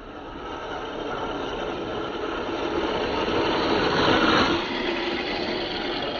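Battery-powered RC 4x4 jeep's small electric motor and gears whirring as it drives. The sound grows louder and is loudest about four seconds in, then eases slightly.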